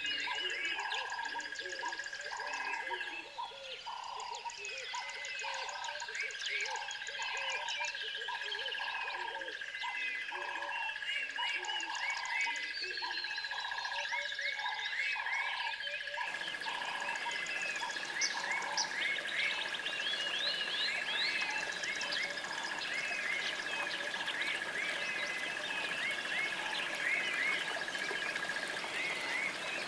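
Frogs calling in an even rhythm, a little more than one call a second, over a constant high trill and many bird chirps. About halfway through the frog calls stop and a steady hiss takes their place under continuing birdsong.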